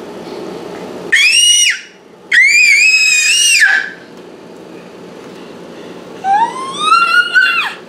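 Six-month-old baby girl squealing: three loud, high-pitched squeals, the first short, the last rising in pitch.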